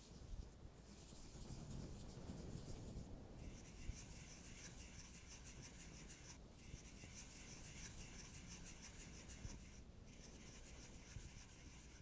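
Faint, close-miked fingertip rubbing and scratching, eyeshadow swatching sounds with a fine dry scratchy texture. It thickens about three seconds in and breaks off briefly twice.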